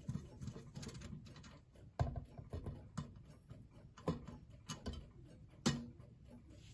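Irregular small metallic clicks, taps and handling noises from gloved hands working the screws and brass parts of a Sinclair Harding Rosemary clock movement to free it from its case, with a few sharper knocks about two, four and nearly six seconds in.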